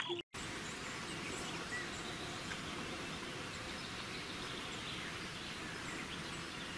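Steady hissing background noise with a few faint short chirps, starting abruptly after a brief dropout.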